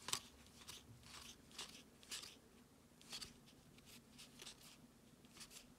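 Faint soft swishes and flicks of baseball trading cards being slid one by one off a hand-held stack, a few brief ones spread irregularly about a second apart.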